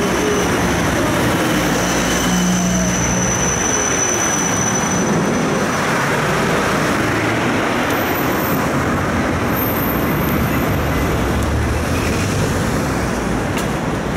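Running noise inside a moving Siemens Combino tram: a steady rumble of wheels on rails and motor, with a thin high whine through the first half and street traffic mixed in.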